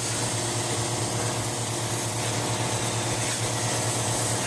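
CNC plasma cutter torch cutting 12-gauge steel sheet: a loud steady hiss of the plasma arc and air stream. Underneath is the steady droning hum of the shop air compressor running.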